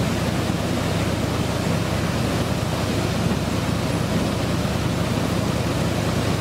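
Fast mountain river rapids rushing steadily over rocks, with a low drone of truck engines underneath.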